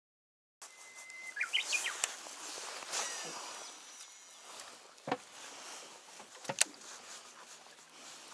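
Lakeside outdoor ambience that starts after a moment of silence, with a bird's short chirping calls about a second and a half in and a few sharp clicks, the loudest about five and six and a half seconds in.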